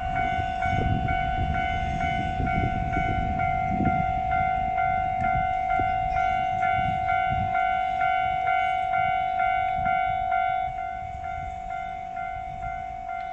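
Railroad level-crossing warning bell ringing its steady "kan-kan" at about two strokes a second. Under it, the low rumble of a passing electric train fades away about ten seconds in.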